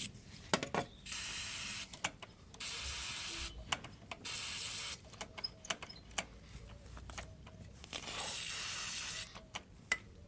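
Aerosol can of Quick Start starting fluid hissing in four spurts of about a second each, sprayed into a carbon-fouled throttle body to clean it. Short clicks and taps come between the spurts.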